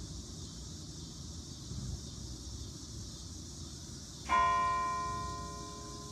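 A single church bell toll about four seconds in, struck once and ringing out with clear overtones that fade over about two seconds, over a steady low background hiss.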